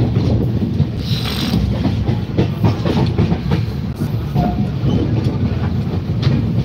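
Moving passenger train heard at an open coach door: a loud, steady rumble of wheels on the track with rapid clacking over rail joints, and a brief hiss about a second in.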